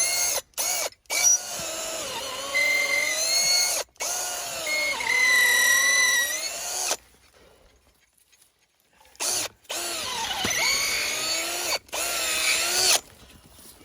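Power drill running in several bursts, its pitch rising and falling with the trigger and the load, while it works bolts through gate hinges; it stops for about two seconds midway, then runs again.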